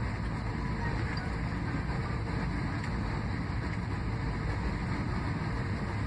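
Steady cabin noise of a jet airliner on approach, heard from a window seat: a deep, even rush of engine and airflow with a faint steady hum, unchanging throughout.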